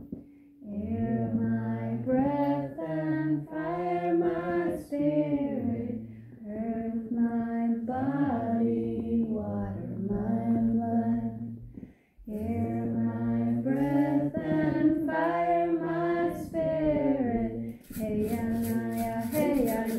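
Voices singing a slow chant in long held, gliding notes, with a lower voice holding steady tones beneath. Near the end a hand rattle starts shaking in a quick, even rhythm of about five shakes a second.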